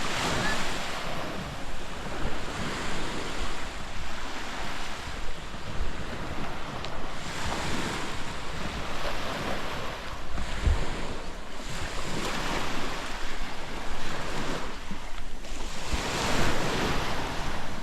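Surf washing onto a sandy beach, the wash swelling and falling back several times, with wind buffeting the microphone.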